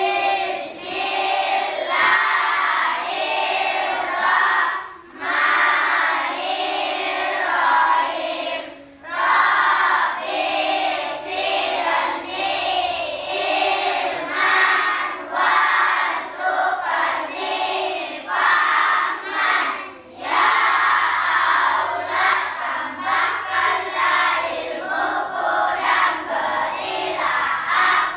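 Many children's voices together in unison, in short phrases with brief pauses between them.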